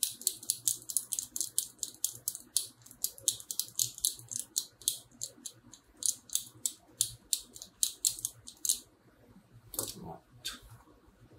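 Rapid, irregular scratching strokes, about four a second, of a small hand tool worked against the circuit board of a Yamaha NTX700 guitar preamp around its tiny surface-mount parts. The strokes stop near the end, followed by a couple of knocks as the preamp is set down.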